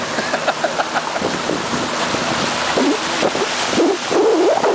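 Motorboat under way, its motor running steadily under wind buffeting the microphone and the rush of water past the hull. Faint wavering pitched sounds come and go over it, more of them near the end.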